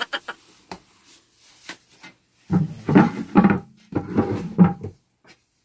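Wooden wardrobe doors being handled: a few light knocks, then a louder couple of seconds of creaking and bumping.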